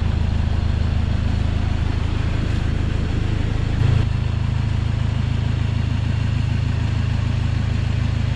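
Toyota HiAce Commuter's diesel engine idling steadily, a low even hum, with one brief low thump about four seconds in.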